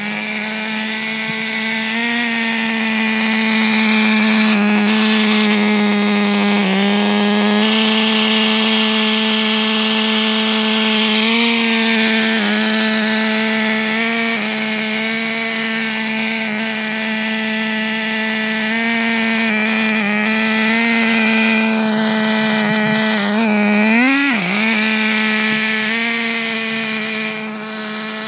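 Traxxas TRX 3.3 two-stroke nitro engine of an RC car running at a steady high buzz, its pitch wavering slightly. Near the end the pitch dips sharply and comes straight back up.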